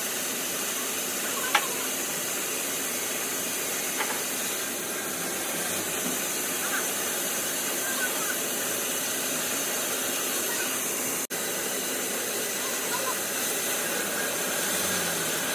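Steady hiss, brightest in the highest range, with a few faint knocks and faint voices; the sound drops out for an instant about eleven seconds in.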